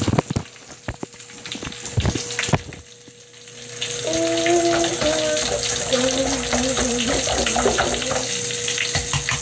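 Bath crackles popping and fizzing in a bowl of water: a dense crackle of tiny snaps. A few louder knocks come in the first couple of seconds, and the crackling dips briefly before building back up about three and a half seconds in.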